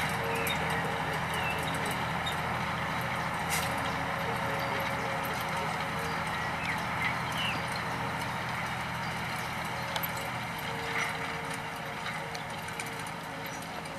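Unimog engine running steadily under load while it pulls a hay tedder, with the tedder's rotating tines clattering over the cut grass. It grows fainter near the end as the machine moves away; a few short bird chirps sound over it.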